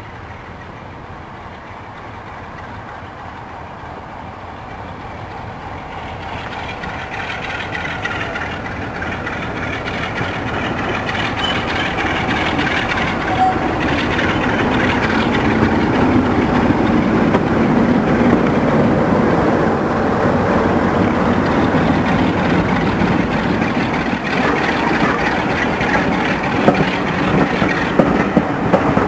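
Class 47 diesel locomotive running as it approaches hauling coaches, its engine growing steadily louder over the first half. Near the end, sharp clacks of the coach wheels over the rail joints come in as the train passes.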